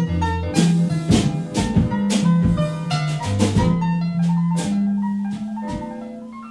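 Instrumental music: a held bass line under regular drum kit beats, with melodic notes on top, getting quieter near the end.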